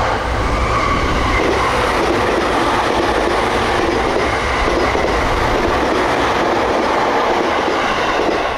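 Sotetsu 10000 series electric commuter train running past close by, a loud, steady rumble of wheels on rails with a faint whine on top.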